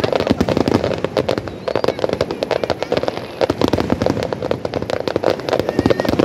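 Fireworks display: a dense, continuous barrage of bangs and crackles from many aerial shells bursting in quick succession over ground fountains.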